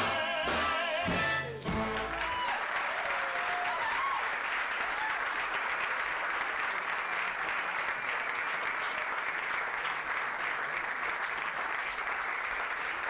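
Two male voices with piano and upright bass hold the final note of a show tune, which stops about a second and a half in. An audience then applauds steadily, with a few voices calling out as the applause begins.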